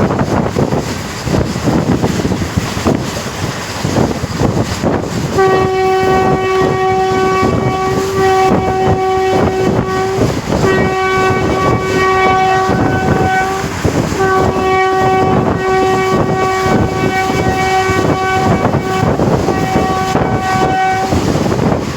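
Moving train on an Indian railway line, wheels clattering and air rushing. About five seconds in, the locomotive horn starts sounding in long steady blasts, four in a row with short gaps, the last held for about seven seconds.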